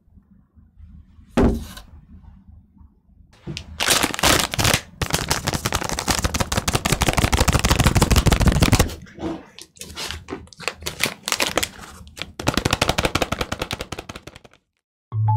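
Thin plastic food wrappers crinkling as individually wrapped macarons are set down and handled, in long runs of dense crackling, after a single knock about a second and a half in.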